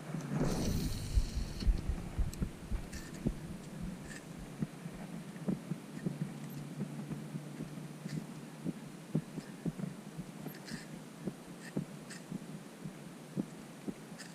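Spincast fishing reel being cranked to retrieve line after a cast: a string of low, irregular clicks and thumps, a few a second. A brief rush of noise comes about half a second in.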